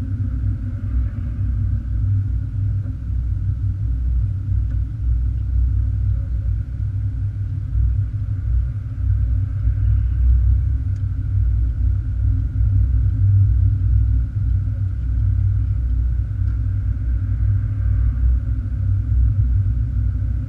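Steady low rumble of a car driving at low town speed, heard from inside the cabin: engine and tyre noise on the road.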